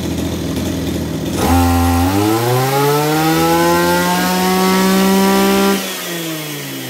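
Maruyama BIGM AC32SA brush cutter's 32 cc two-stroke engine idling, then revved up about a second and a half in, its pitch climbing to high revs and held there for a few seconds before the throttle is released and it falls back to idle near the end.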